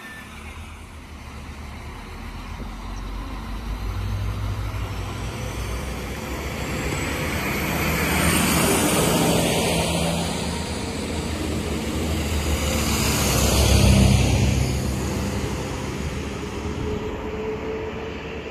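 Alstom Coradia LINT diesel multiple unit passing close by. The diesel engine note and the rush of wheels on rail swell twice, loudest about fourteen seconds in, as the cars go past. The sound then fades as the train pulls away.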